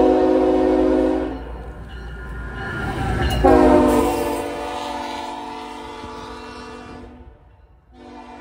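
Diesel locomotive's multi-tone air horn: one blast ending about a second and a half in, then a longer blast as the locomotive passes close by, its pitch dipping slightly as it goes past, over the low rumble of the train. The horn fades and near the end the sound cuts off abruptly, and a fainter steady chord of tones follows.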